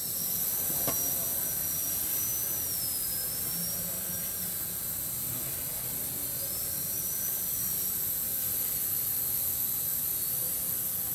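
Small electric quadcopter flying and hovering: its motors and propellers give a steady high whine whose pitch wavers up and down as the throttle changes. A single faint tick about a second in.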